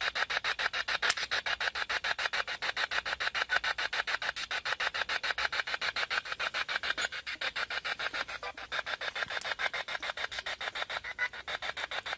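Handheld spirit box sweeping through radio frequencies: radio static chopped into rapid, even bursts, about eight or nine a second.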